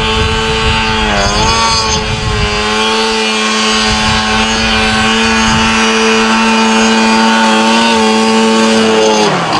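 Snowmobile engine held at high revs as the sled ploughs through deep powder, dipping briefly about a second in. Its pitch drops near the end.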